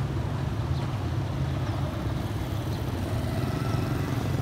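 Street traffic with motorbikes riding past, heard as a steady low rumble of engines and tyres.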